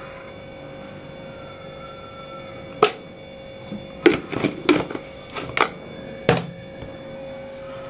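Knocks and clinks as a jar of desi ghee and steel kitchen utensils are handled: one sharp knock about three seconds in, then a quick run of half a dozen clinks and knocks, over a steady hum.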